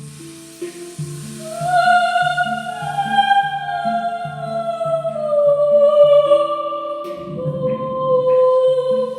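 Wordless Celtic-style female singing, long notes gliding slowly up and down, over a steady low hand-drum beat.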